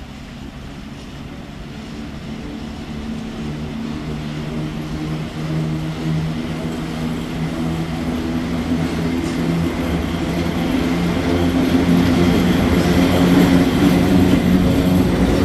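ET22 electric locomotive hauling a freight train, drawing near and coming level: a steady low hum that grows steadily louder as it approaches.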